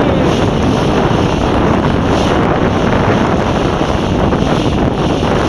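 Steady, loud wind buffeting the microphone over the wash of choppy water.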